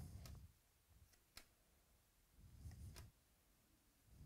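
Near silence, with a few faint clicks and soft low bumps from a stack of trading cards being flipped through by hand.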